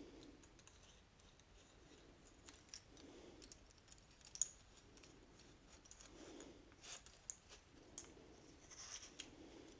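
Faint, scattered small clicks of a homemade Chinese rings puzzle being handled: the bent-wire loop and rings knocking lightly against each other and the split-pin pillars as the puzzle is set into its locked position. The sharpest click comes about four and a half seconds in.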